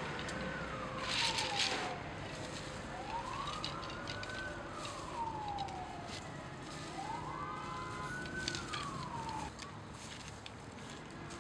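A siren wailing in slow rising-and-falling sweeps of about three seconds each, stopping a little before the end, over light clicking and rustling of bamboo sticks being handled, loudest about a second in.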